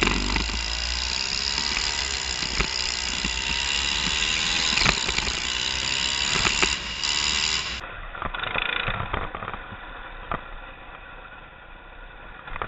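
Go-kart engine running at speed, its pitch rising and falling with the throttle, with scattered knocks. From about eight seconds in it gets quieter and lower as the kart slows.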